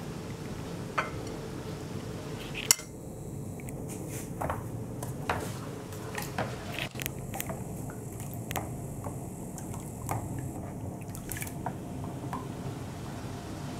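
Light clinks and taps of metal bowls and a spoon being handled, scattered irregularly over a steady low hum.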